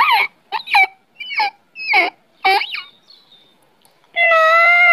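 A horse whinnying: a quick run of five short calls, each falling sharply in pitch, then one longer, steadier call starting near the end.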